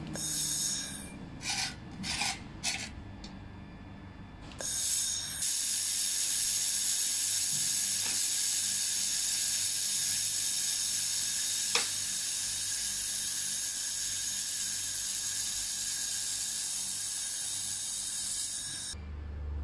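Handheld fiber laser welder on a metal tube: a few short bursts as it tacks, then from about five seconds in a continuous weld with a steady hiss that cuts off shortly before the end. One sharp click about twelve seconds in.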